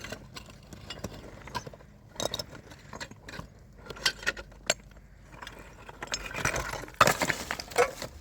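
Irregular light clinks and knocks of small hard objects being handled, with a busier, louder stretch of clattering near the end.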